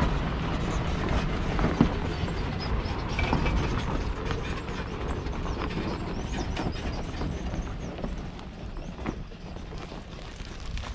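4WD vehicle driving over a rough, rocky track: a steady rumble with scattered creaks, clicks and knocks, getting somewhat quieter in the last few seconds.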